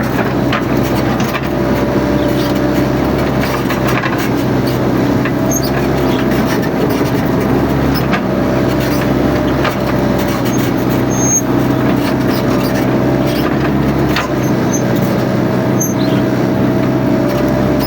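Mini excavator's diesel engine running steadily under work, with a wavering whine above the engine note and scattered clicks and knocks.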